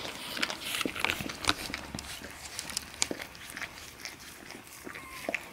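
A mother dog tending her newborn puppy: irregular small wet clicks and smacks from her mouth, with soft rustling of the padded bed.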